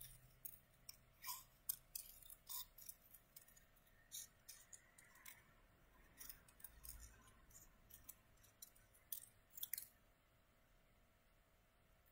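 Small scissors snipping through paper: a quick, irregular run of faint snips that stops a couple of seconds before the end.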